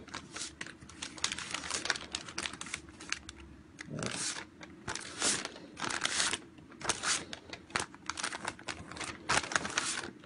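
Paper rustling and crinkling in short irregular bursts, with small taps, as a sheet is pressed and smoothed onto wet spray paint.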